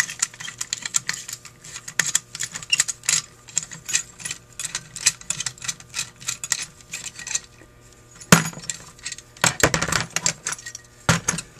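Small metallic clicks, scrapes and clinks of a screwdriver and the parts of a Holley 1904 one-barrel carburetor as it is taken apart: a quick, uneven run of light ticks, with louder clinks about eight seconds in and again near the end.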